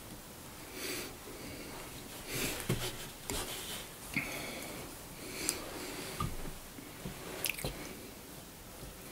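A man's breathing close to the microphone, several soft, wheezy breaths, with a few small clicks and taps of fly-tying tools being handled.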